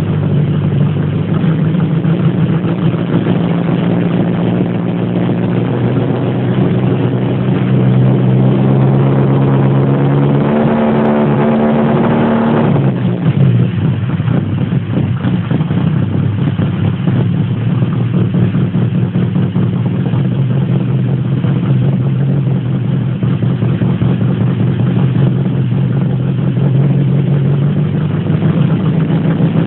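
Lada car engine running steadily, its pitch climbing for a few seconds about a third of the way in and then dropping off abruptly as the revs fall, before settling back to an even run.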